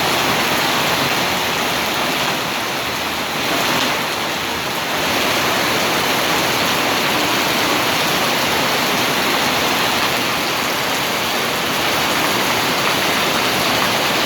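Heavy rain pouring down, a steady loud hiss with no let-up.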